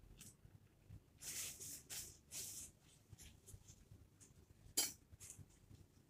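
Someone eating saucy buffalo chicken wings by hand: soft, wet mouth sounds and faint clicks, with one sharp click nearly five seconds in.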